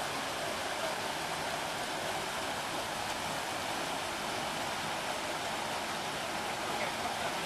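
Fast-flowing river water rushing steadily over rocks near a waterfall.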